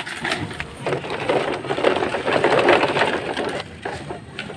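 Plastic toy dump truck loaded with toy cars rolling over dry dirt, its wheels crunching the soil and its load rattling in a fast, continuous crackle.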